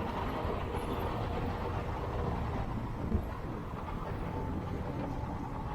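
Steady rumble of a motor scooter riding in traffic, engine and road noise together, with a single short knock about three seconds in.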